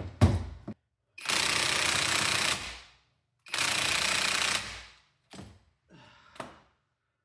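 Impact wrench hammering in two bursts of about a second and a half each on the lower engine mount bolt, followed by a couple of light clicks; the bolt does not come loose.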